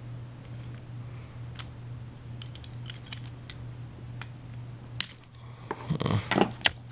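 Small metallic clicks and clatter from a deadbolt lock and hand tools being handled, with a sharp louder click about five seconds in and a short burst of rattling just before the end.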